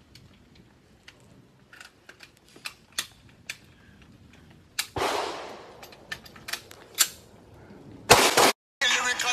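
Sharp clicks and clacks of a pistol and its magazine being handled, with one louder bang and a fading echo about five seconds in. Near the end, loud, closely spaced gunshots.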